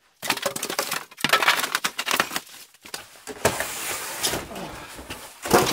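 Polystyrene foam packing blocks and a cardboard box being handled and pulled apart: dense crunching, creaking and scraping with many sharp crackles.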